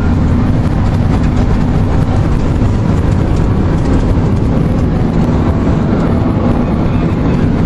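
Steady road noise inside a car driving on the highway, a low, even rumble of tyres and engine with no separate events.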